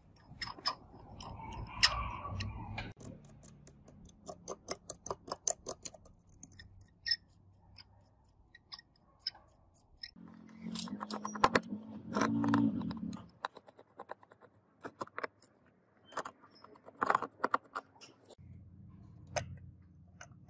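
Small, irregular metallic clicks and ticks of a precision screwdriver turning and backing screws out of a phone's metal frame, with a quick run of clicks a few seconds in. A low hum comes and goes under the clicks, loudest a little past the middle.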